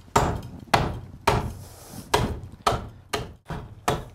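Axe chopping into a hewn wooden ox-yoke beam, notching out wood between saw cuts: a steady run of sharp knocks, about two blows a second.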